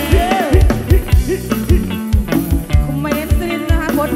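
Live Khmer Surin kantrum band music: voices singing into microphones over a steady, regular drum beat.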